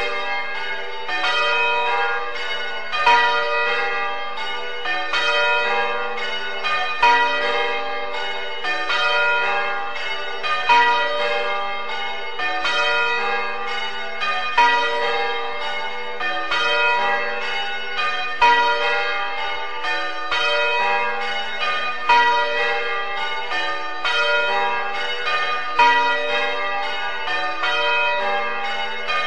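Church bells ringing in a continuous run of rows, one bell after another, typical of change ringing. A louder stroke comes round about every four seconds.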